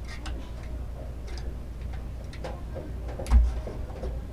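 Small product box and packaging being opened by hand: scattered light clicks and taps over a low hum, with one dull thump a little over three seconds in.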